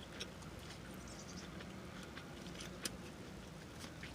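Faint chewing and mouth smacking on a spicy fried chicken sandwich: scattered small wet clicks, with one sharper click nearly three seconds in.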